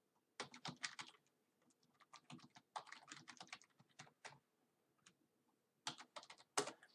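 Typing on a computer keyboard as a password is keyed in: three short runs of keystrokes, about half a second in, from two to four seconds in, and near the end.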